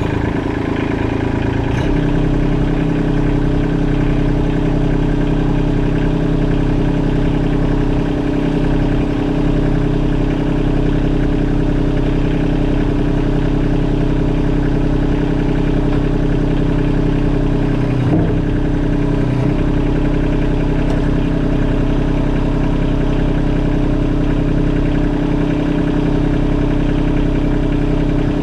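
Kubota LX compact tractor's three-cylinder diesel engine idling steadily right after being started.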